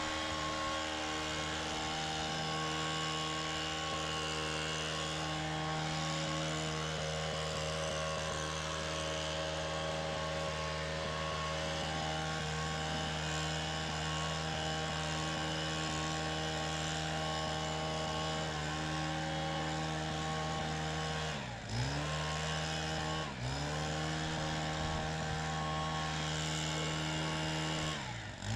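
Small-engine leaf blower running steadily at high throttle, blowing dust and chaff off a combine's corn head. Twice near the end it is throttled down and straight back up, and at the very end it is shut off.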